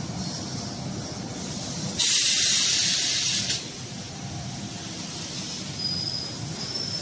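Fiber cement board production line machinery running with a steady low hum, cut across about two seconds in by a loud hiss of released air or steam lasting about a second and a half. A thin high squeal sounds twice near the end.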